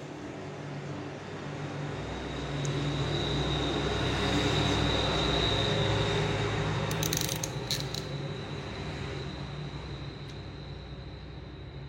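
A motor vehicle's engine hum swells and then fades as it passes, over a steady high-pitched tone. A few sharp clicks come about seven to eight seconds in.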